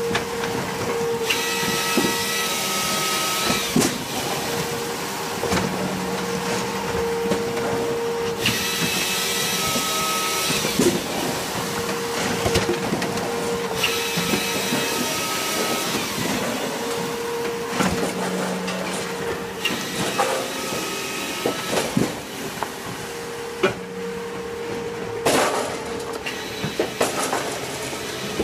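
Tajfun RCA 480 Joy firewood processor at work: its drive and hydraulics run with a steady hum, while the saw cuts through a log in spells of about two to three seconds that come round roughly every six seconds. Split pieces of firewood knock and clatter down in between.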